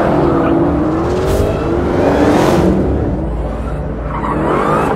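Dodge Challenger V8 engine revving hard through a burnout and drift, its note rising and falling, with a rough tyre-smoke hiss beneath. The engine dips briefly near the end, then climbs again.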